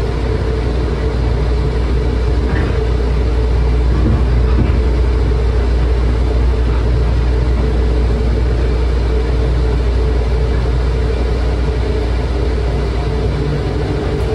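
O'Hare airport transit train (automated people mover) running, heard from inside the car: a steady low rumble and hum of the moving train, growing slightly louder about four seconds in.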